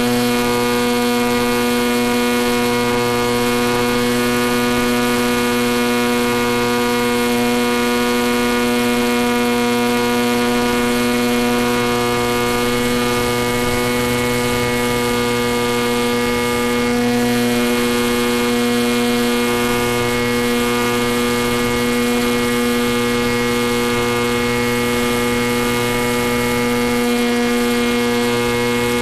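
Steady electrical hum-buzz made of many even, unchanging tones. Its pitch does not follow the plane's changing motor current, which points to interference on the FPV video link's audio rather than the motor itself.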